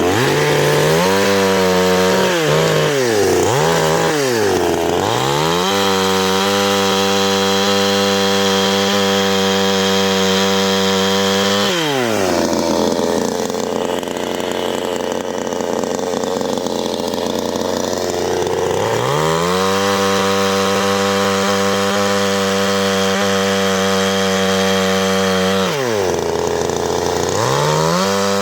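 CanFly 54.6 cc two-stroke chainsaw revved: several quick throttle blips, then held at high revs, dropping back sharply about 12 seconds in. It runs lower for several seconds, is held at high revs again from about 19 seconds in, drops, and revs up once more near the end.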